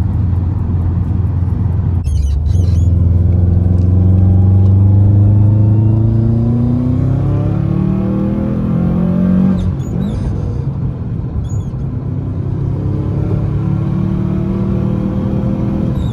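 The turbocharged EJ20X flat-four of a 2011 Subaru WRX hatch, heard from inside the cabin as the car pulls under boost. The revs climb for about seven seconds, then drop suddenly at a gear change and climb again more gently. Brief high chirps come with the gear changes.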